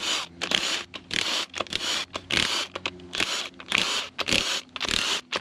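A ratchet wrench on a 13/16 socket, clicking in quick rasping strokes, about ten short bursts with brief gaps, as the main bearing cap bolts of a Jeep 4.0 inline-six are loosened.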